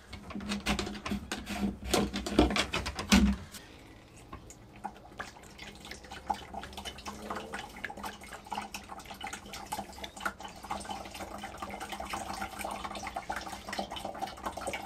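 A few sharp knocks and clicks from handling at the open deck hatch and oil tank, then synthetic two-stroke outboard oil glugging steadily from a jug through a funnel into the oil tank, starting about four seconds in.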